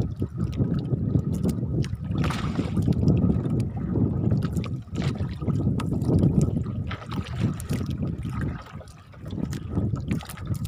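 Sea water sloshing and lapping against a small fishing boat's hull, rising and falling in waves, with scattered small clicks and knocks.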